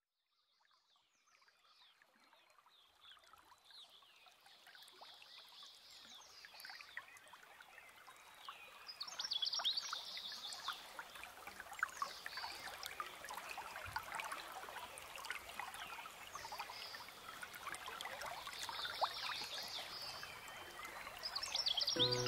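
Birds calling with repeated high trills, over a steady trickle of running water, fading in from silence.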